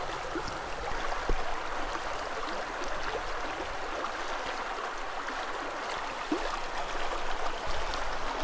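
River water running over shallows: a steady rushing and babbling of flowing water.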